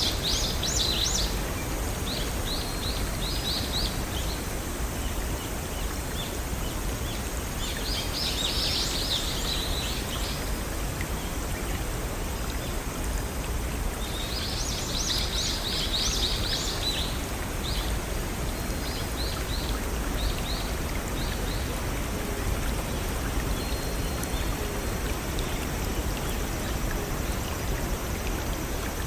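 Steady rush of water from a small forest stream or waterfall, with a bird singing in repeated short bursts of rapid high notes every few seconds, loudest about 8 and 15 seconds in.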